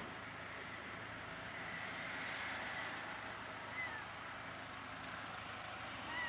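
Young tortoiseshell kitten mewing: two short, high mews falling in pitch, one about four seconds in and one near the end, over a steady background rumble.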